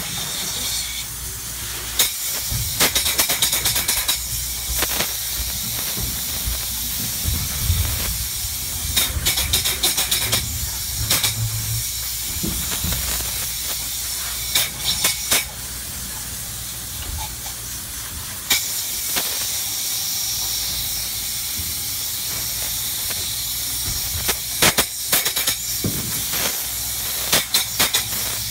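Spray foam gun hissing steadily as open-cell spray foam insulation is sprayed between ceiling joists, with clusters of sharp clicks several times and a quieter stretch a little past halfway.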